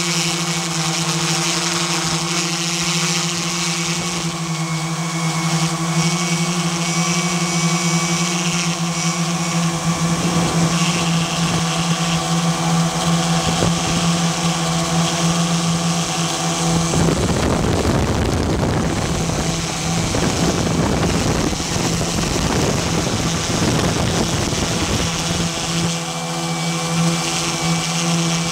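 Steady multi-tone buzz of a quadcopter drone's motors and propellers in flight. For several seconds past the middle the buzz is swamped by a rough rushing noise, then it returns.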